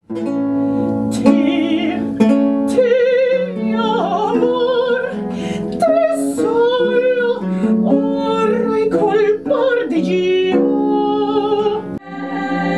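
A woman singing with a strong vibrato, accompanied by a plucked lute with an extended bass neck. Near the end it cuts abruptly to a different, steadier sound.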